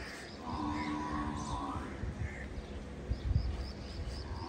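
A cow lowing once for about a second, with birds chirping and wind rumbling on the microphone.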